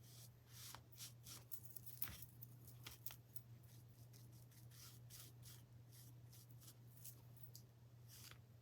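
Faint, scratchy brushing and light taps of a paintbrush working paint onto a small wooden cutout, over a steady low electrical hum.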